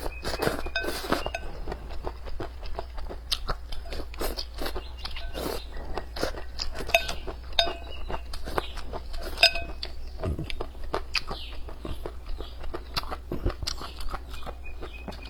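A person eating close to the microphone: a dense, irregular run of chewing, biting and wet smacking sounds.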